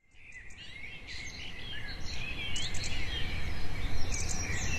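Woodland birdsong ambience fading in: many small birds chirping and whistling in short, high calls over a steady low hum.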